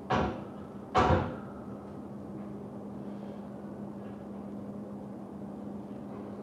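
Two knocks about a second apart from the steel pull-up bar as hands take hold of it, then a steady low hum.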